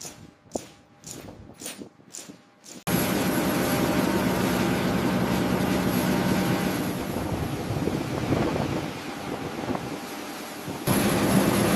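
A few soft knocks over near quiet, then from about three seconds in a sudden, loud, steady drone of a military transport aircraft's engines with a low hum underneath.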